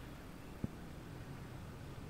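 Steady low outdoor rumble, with one brief sharp click about two-thirds of a second in.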